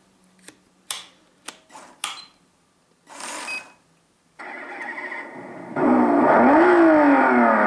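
A few sharp clicks, then a 1:24 scale slot car's electric motor starts up on a test bench about four seconds in and runs with a whine. From about six seconds in it is much louder, its pitch rising and falling as it is revved up and down to warm it up.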